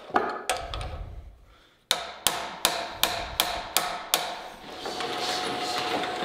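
A hand hammer strikes a wrench about seven times in quick, even succession, driving tight a set screw on the Beaudry power hammer's spring arm. From about five seconds in, a steady machine hum starts as the power hammer's drive begins to turn.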